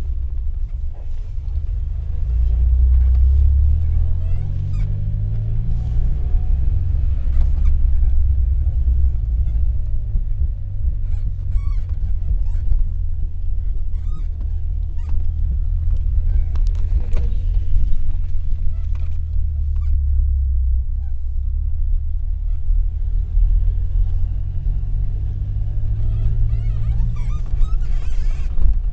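Suzuki 4x4's engine heard from inside the cabin while driving: a low rumble that rises and falls with the revs, with scattered knocks and rattles from the rough track.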